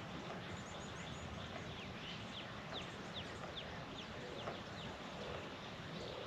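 Faint outdoor field ambience with a bird calling: a quick run of short, falling chirps starting about two seconds in and lasting a couple of seconds, over a steady background hiss.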